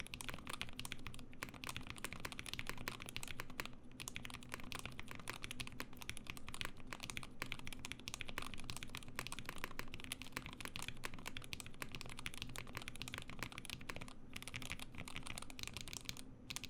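Continuous typing on the Ikki68 Aurora prototype mechanical keyboard: a dense, rapid stream of keystroke clacks.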